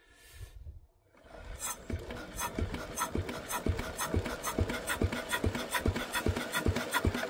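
Lister D single-cylinder petrol engine being turned over by hand crank, knocking about three times a second without settling into running. The engine has only coughed so far, which the owner suspects is a carburettor problem.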